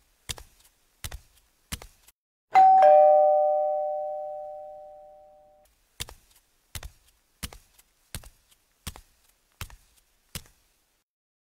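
A doorbell's two-note ding-dong, a higher note then a lower one, about two and a half seconds in, dying away over about three seconds. Before and after it, steady footsteps, about one every 0.7 s.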